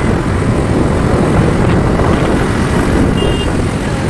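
Steady rush of wind and road noise on a moving motorcycle, loud and buffeting the phone's microphone.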